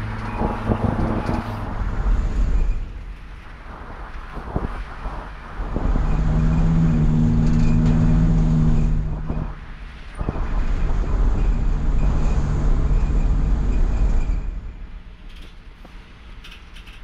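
Mercedes Sprinter van driving: the diesel engine and road noise rise to two long, louder steady stretches with a low hum, easing off in between and near the end. This is the test drive after the water pump replacement.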